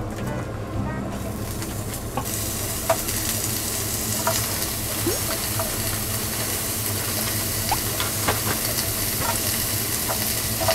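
Thinly sliced pork belly sizzling on a hot grill plate. The sizzle comes in about two seconds in and then holds steady, with a few light clicks.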